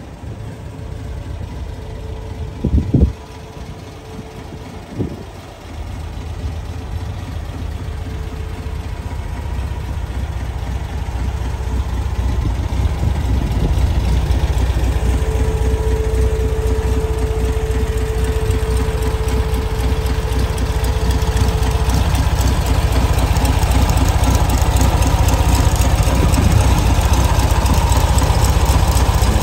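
VW Bus air-cooled flat-four engine idling steadily, growing louder as the engine bay is approached. Two sharp thumps about three and five seconds in.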